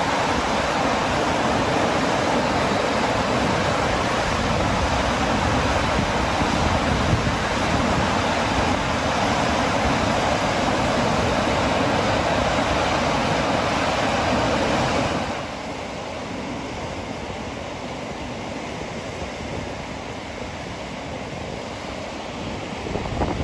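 Steady rush of Gibbon Falls cascading over rock. About fifteen seconds in it drops to a softer, lower rush.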